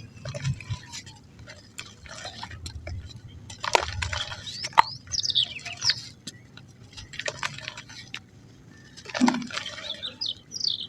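Soft mud or cement chunks being crumbled by hand, giving irregular crackles and crunches, with short bird chirps in the background about halfway through and near the end.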